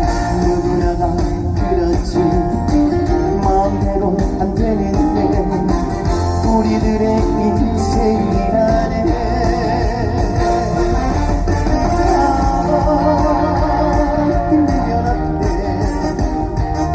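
Live band music from a trot song played over a concert sound system, with guitar to the fore.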